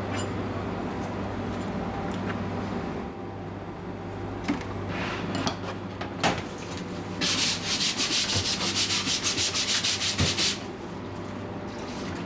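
Rapid back-and-forth scraping or scrubbing, about ten strokes a second, lasting roughly three seconds from about seven seconds in, with a few single clicks and knocks before it. A steady low hum runs under the first few seconds.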